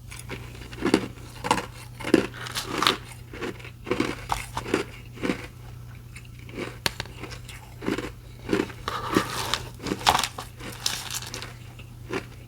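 A person biting and chewing restaurant ice: a run of crisp, irregular crunches, with a short lull about midway, over a steady low hum.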